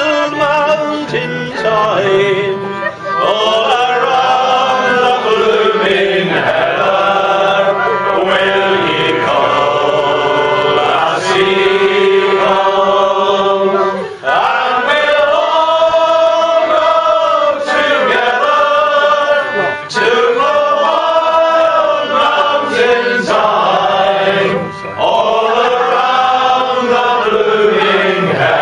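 Voices singing a slow song in long, drawn-out phrases, with short breaks between them.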